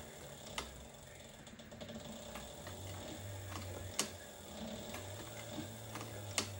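Heavy-duty leather sewing machine stitching slowly through a thick leather holster seam: a low motor hum with a few sharp clicks, the loudest about four seconds in.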